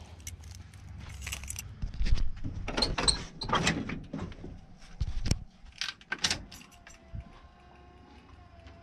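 Clicks, rattles and knocks of handling. About seven seconds in, a faint steady whine starts: the squarebody GMC's electric windshield washer pump running, which shows the newly spliced wires do feed the washer.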